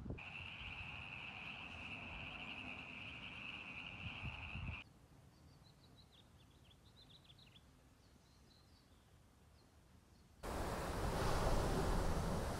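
A steady high-pitched trilling chorus cuts off after about five seconds. A quieter stretch with a few short bird chirps follows. Near the end, ocean surf washes in, much louder.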